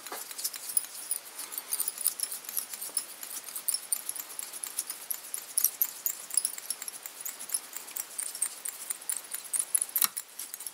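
Fine fly-tying thread being wound onto a copper tube from a bobbin, making rapid, irregular light ticks and scratches, with one stronger knock near the end.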